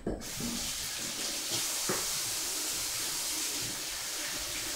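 Kitchen tap running steadily, an even rush of water that starts abruptly, with a faint knock about two seconds in.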